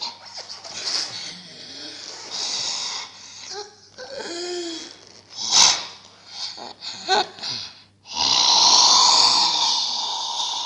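A person making breathy, wordless vocal noises, wheezing and snorting, with a few short pitched squeaks in the middle, then a long loud rush of breath near the end.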